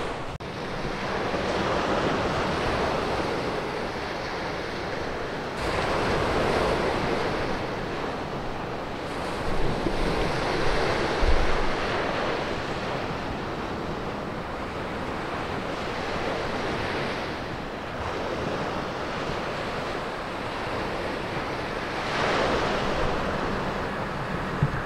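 Sea waves breaking and washing on the beach below the sea wall, surging every few seconds, with wind buffeting the microphone.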